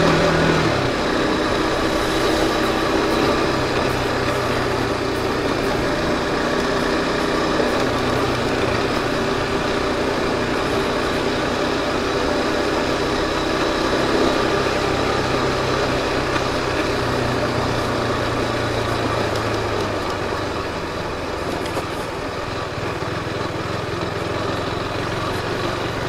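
KTM RC 390's single-cylinder engine running at low revs as the bike rides slowly along an unpaved track. The engine note drops about a second in, then holds steady over a constant rush of noise.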